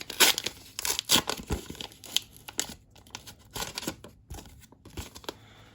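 Plastic wrapper of a Teamcoach trading card pack being torn open and crinkled, a quick string of irregular rips and rustles that thins out after about four seconds.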